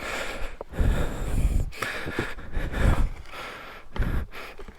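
A person breathing hard and straining in gusts while heaving a stuck dirt bike from the back.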